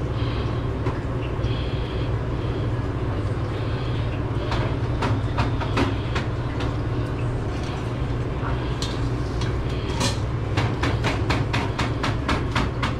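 Steady low rumble of a vehicle on the move, heard from inside, with loose items rattling. The rattle comes as scattered clicks and then a quick run of about five clicks a second about ten seconds in.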